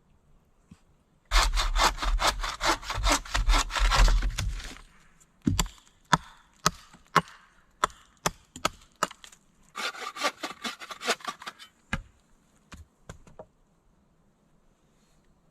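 Wood being cut with a handsaw in two quick bouts of rapid back-and-forth strokes, with single sharp knocks and clicks of wood between and after them.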